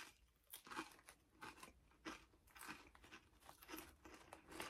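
Close-up chewing of lime-flavoured Lay's potato chips: soft, crisp crunches about twice a second as a mouthful is chewed.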